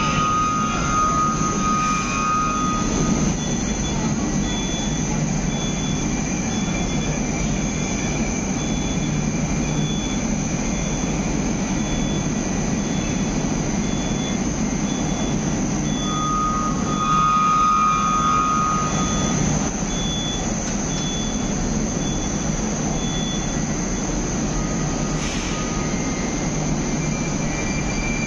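Moscow Metro train running on its rails with a steady rumble. The wheels squeal briefly at the start and again about sixteen seconds in.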